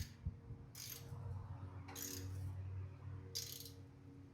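Ratchet clicking in short bursts, about four times, as header bolts are run in on a big-block Chevy.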